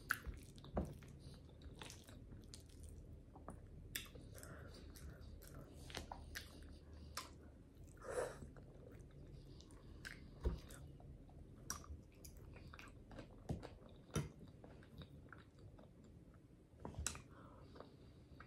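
Close-miked chewing of creamy ramen noodles: soft, wet mouth sounds and lip smacks in scattered bursts at a low level.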